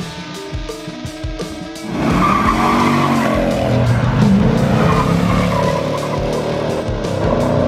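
Guitar music for about two seconds, then a car engine revving with tires squealing and skidding over the music, as an outro sound effect.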